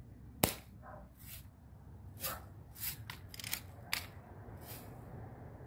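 Daisy Red Ryder spring-powered BB gun: one sharp shot about half a second in, then a run of clicks and rasps over the next few seconds as the lever is worked to cock it again.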